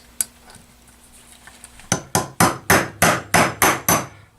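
Hammer tapping on a small driver tool to knock an oil seal out of an Evinrude outboard's bearing housing from the inside. About two seconds in come a quick run of about nine sharp taps, roughly four a second.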